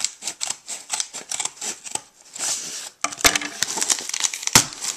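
Scissors snipping through packing tape on a cardboard shipping box in a run of short, crisp cuts. After about three seconds, tape tearing and cardboard flaps being pulled open, with two sharp knocks.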